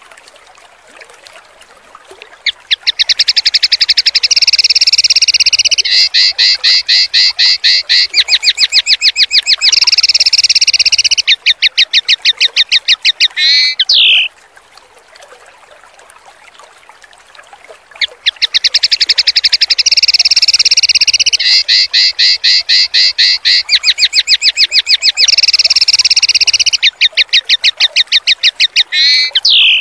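Songbird training recording of a rapid-fire 'tembakan' song: a long, loud run of fast repeated harsh notes lasting about twelve seconds and ending in a short downward-sweeping note, played twice as an identical loop. Between the two phrases a faint sound of running water continues.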